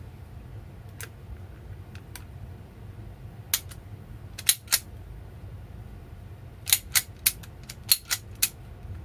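About a dozen sharp clicks and clacks of small metal parts from handling an Umarex Walther PPK/S CO2 blowback air pistol, a few spaced out and then in quick runs, over a steady low hum.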